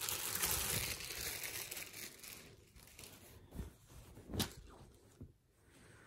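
Clear plastic poly bag crinkling as a folded T-shirt is taken out of it, the rustling fading after about two and a half seconds. Then a couple of short soft knocks and fabric rustles as the shirt is handled and laid flat.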